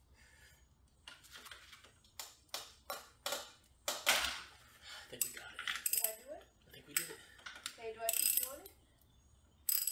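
A socket ratchet on the Honda Grom's clutch centre nut clicks and clinks irregularly, over and over, as the nut is worked loose.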